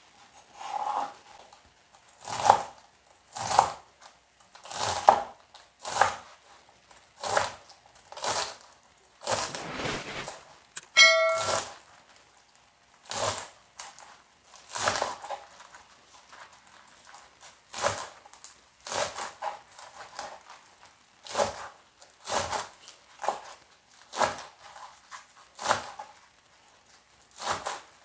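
Knife chopping bok choy on a cutting board: single chops landing about once a second, a little unevenly. A short pitched ding sounds once about 11 seconds in.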